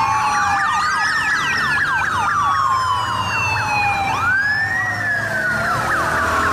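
Several police motorcycle sirens sounding together: a slow wail rising and falling over a few seconds, overlapped by a fast yelp sweeping up and down several times a second. A low engine rumble runs beneath.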